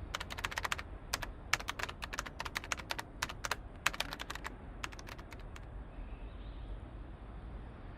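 Computer keyboard typing: quick runs of sharp key clicks that stop a little past halfway, leaving a faint steady background.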